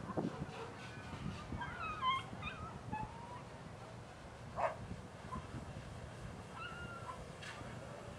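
A dog whining in thin, high whimpers that slide up and down in pitch. The whimpers come in a cluster about two seconds in and again near the end, with one short sharp sound midway.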